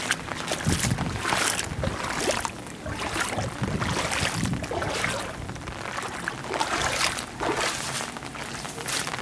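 Footsteps splashing through shallow floodwater over a concrete sidewalk, about one step a second, with rain falling on the water.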